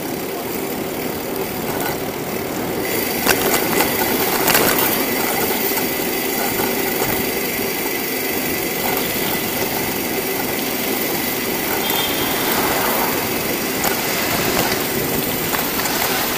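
Steady road noise and rattle of a bicycle rolling on city asphalt, picked up by a camera mounted on the bike, with a car passing close alongside near the end.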